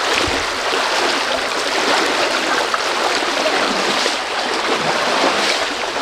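Fast-flowing stream rushing and churning around rocks: a steady rush of water.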